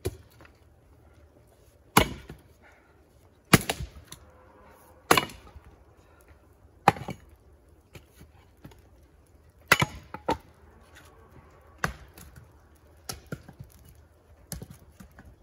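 Axe splitting firewood: a series of sharp, cracking chops into wood rounds, about ten in all, one every second or two.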